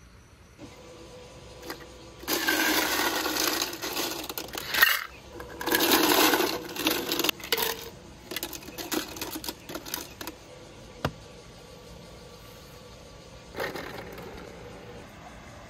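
Small hard objects clattering and rattling in two loud bursts a couple of seconds in, followed by scattered clicks and a shorter rattle near the end.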